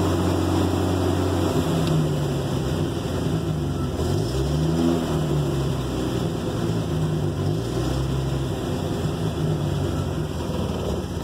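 Car engine running a little rough on choke just after its first start, its revs wandering up and down several times.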